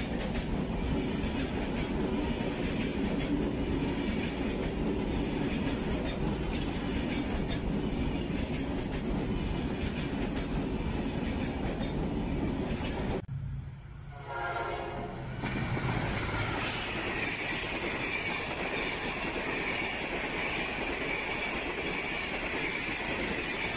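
Egyptian National Railways passenger coaches passing close by at speed: a steady rush and rumble of wheels on rail. About 13 seconds in, the sound cuts off abruptly and dips briefly, then another passenger train is heard passing, with a steady hiss above the rumble.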